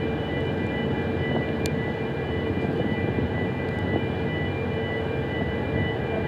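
Steady machinery drone: a constant low rumble with a hum and several high, thin whining tones held unchanged, and one faint click about a second and a half in.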